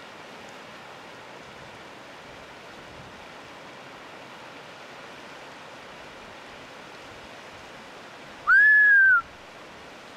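A yellow-bellied marmot gives a single short, loud alarm whistle, rising and then falling, near the end, over the steady rush of a mountain stream.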